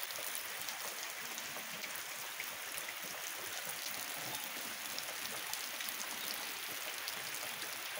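Light rain falling steadily, a fine, even patter of drops with no wind or thunder.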